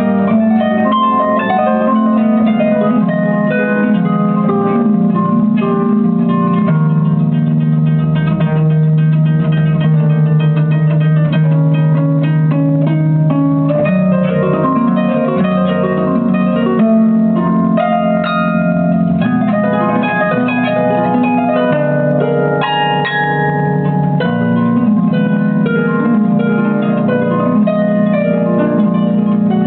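Harp played by hand: a continuous run of plucked notes, a melody over low bass notes that ring on beneath it.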